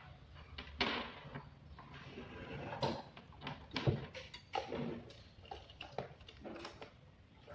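Irregular clicks and knocks of hands working on a small amplifier circuit setup, over a faint steady low hum.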